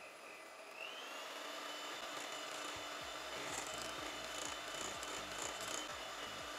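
Electric hand mixer beating cream cheese and sugar in a glass bowl, its motor whine stepping up in pitch about a second in as it speeds up. A soft rhythmic knocking, about three a second, runs under the whine from about three seconds in.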